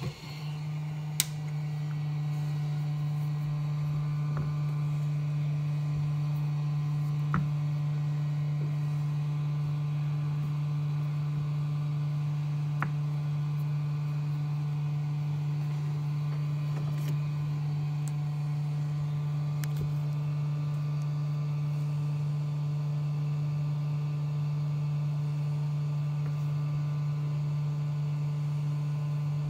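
Steady low electrical hum that holds unchanged throughout, with a few faint clicks of a circuit board being handled.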